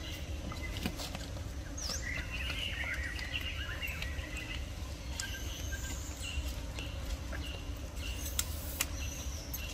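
Forest ambience: scattered high bird chirps and short calls over a steady low rumble, with a few light clicks.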